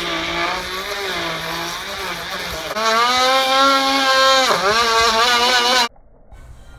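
Electric die grinder with a Ninja rotary carving bit running and cutting into dry wood as a steady motor whine. About 3 s in the whine jumps higher and louder as the speed is raised on a variable-speed foot pedal. It sags briefly and recovers, then cuts off abruptly near the end.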